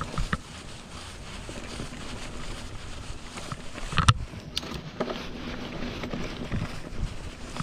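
Giant Talon 3 mountain bike with a Rockshox Judy Silver TK air fork rolling fast down a dirt trail: steady tyre noise on dirt and leaves, with sharp knocks and rattles from the bike hitting bumps, the loudest about four seconds in and two more soon after.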